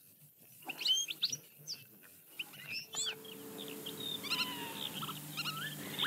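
Small birds chirping and twittering in many short, high calls, with lower whistled notes joining about three seconds in. A faint steady low drone also comes in about three seconds in.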